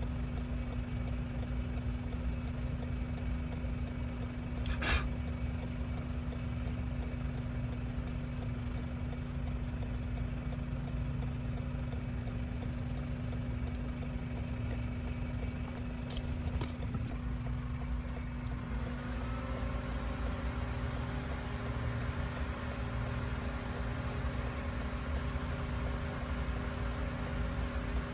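An engine idling steadily, a low rumble with a constant hum. There is a sharp click about five seconds in. From about two-thirds of the way through, a set of steady higher tones joins the rumble.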